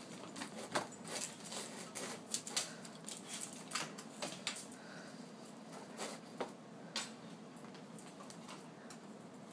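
Dogs' claws clicking and scrabbling on a wooden floor as a Siberian husky puppy and an older Staffy play-wrestle: irregular sharp taps, busiest in the first few seconds, then thinning out.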